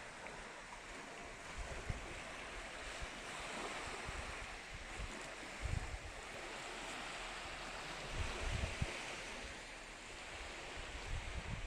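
Sea surf washing steadily onto the shore, swelling and easing, with gusts of wind buffeting the microphone a few times.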